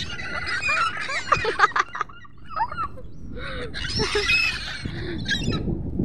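A flock of gulls calling, many short overlapping cries at once, as the birds wheel about looking for food. A few sharp knocks come between one and two seconds in, and there is a brief lull a little after two seconds.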